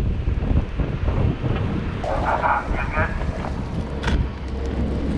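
Steady rumbling wind noise buffeting a helmet-mounted microphone, with a brief voice about two seconds in.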